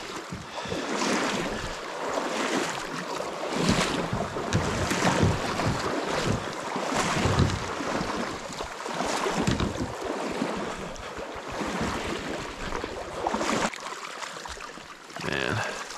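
Wind buffeting the microphone in irregular gusts over the rush of a shallow, fast-flowing creek.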